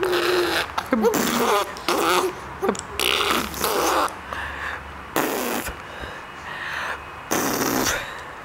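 A baby blowing raspberries: about eight spluttering lip buzzes in a row, some mixed with short gliding voice sounds.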